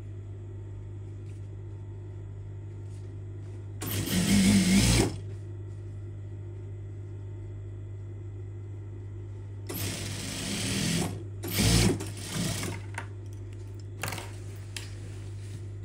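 Sewing machine stitching a fabric strip in place in short runs: one about four seconds in, then two more close together around ten and twelve seconds, with a steady low hum throughout.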